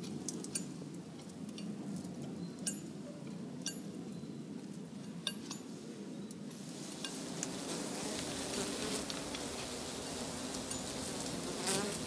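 Honeybees buzzing steadily around their nest in an old tree, with scattered light clicks and taps over the top. Near the end one bee passes close with a brief louder buzz.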